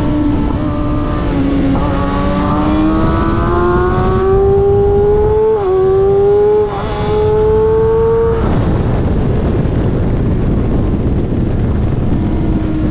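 Sport motorcycle engine on a track, recorded onboard with heavy wind rush. The engine climbs steadily in pitch under acceleration, dips briefly on a gear change about five and a half seconds in, and drops away about eight seconds in as the throttle closes, leaving mostly wind noise.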